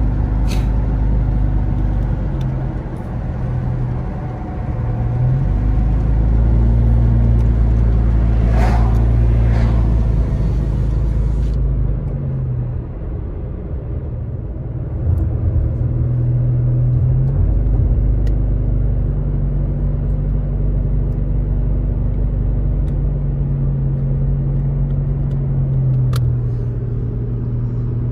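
A car driving, heard from inside the cabin: a steady low engine drone and road noise, the engine note shifting up and down several times as the speed changes.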